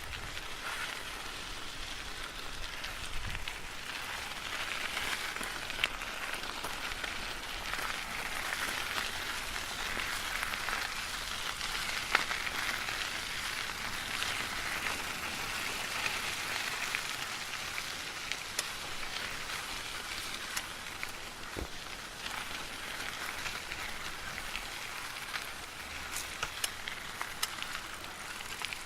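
Bicycle tyres rolling over gravel: a steady gritty noise with scattered sharp clicks of stones.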